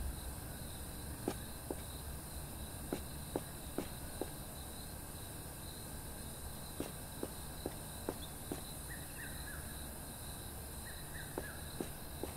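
Quiet background ambience: a steady low hum with scattered soft clicks throughout and a few short, faint falling chirps about nine and eleven seconds in.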